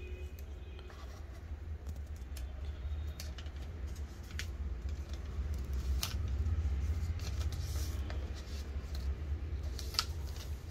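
A new smartphone being slid out of its thin plastic protective sleeve and handled: scattered crinkles, scrapes and small clicks, the sharpest about six seconds in and near the end, over a steady low hum.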